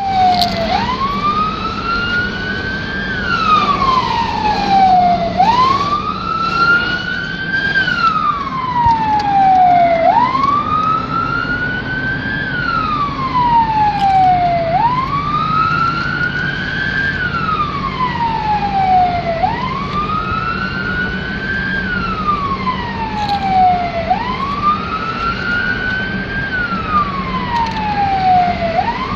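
Emergency-vehicle siren on wail, heard from inside the cab of the responding vehicle. It slowly rises and falls in pitch, about six cycles of roughly four and a half seconds each. A steady engine and road hum runs underneath.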